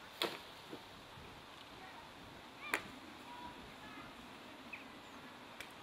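Quiet outdoor street ambience with two sharp clicks, about a quarter second in and near the middle, and a few faint short chirps.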